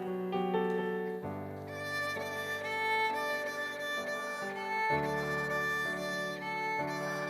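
Instrumental music: a violin-like bowed melody over sustained chords, the harmony shifting about a second in, around five seconds in and again near the end.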